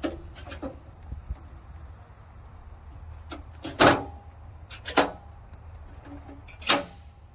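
Parts and packing being handled while unpacking a sawmill: three sharp knocks, about four, five and nearly seven seconds in, with lighter clicks between them.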